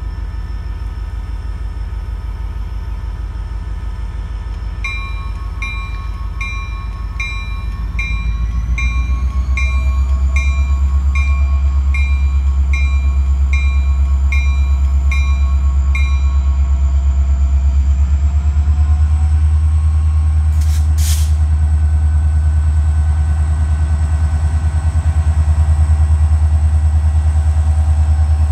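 CSX diesel freight locomotive approaching long hood forward, its engine a deep rumble that grows louder about eight seconds in and stays loud as the train draws near.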